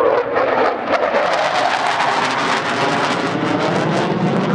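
Jet noise from a MiG-29's twin Klimov RD-33 turbofans as the fighter banks through a tight turn: a loud, steady rushing noise, with a ragged crackle that sets in about a second in.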